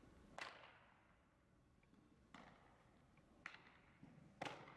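Four sharp knocks of baseball fielding practice echoing in a large indoor hall, a ball being hit and caught, the last knock the loudest.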